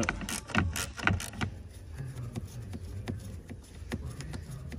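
Ratchet wrench clicking as a hand turns a Torx socket to undo a trim screw. A quick run of clicks comes in about the first second, then sparser single clicks and light knocks of the tool.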